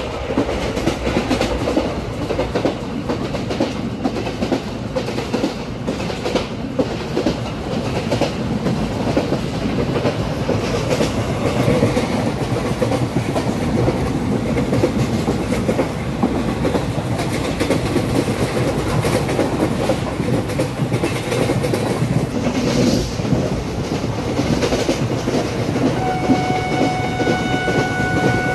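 An Indian Railways ICF passenger coach running along the track at speed, heard at the open door: a steady rumble of wheels on rail with the clickety-clack of rail joints. A train horn starts near the end and holds as one steady note.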